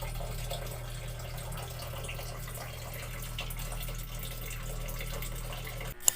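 Steady rushing noise over a low hum, like water running, cut off by a sharp click near the end.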